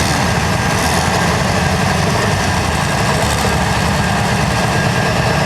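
The P-pump diesel engine of a pulling truck, running loud and steady.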